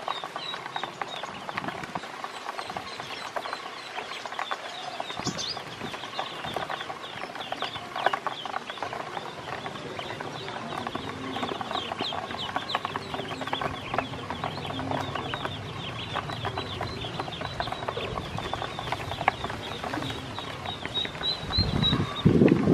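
A group of ducklings peeping continually, many short high calls overlapping, with quick clicks of their bills pecking feed off a plastic basin. A louder bump comes near the end.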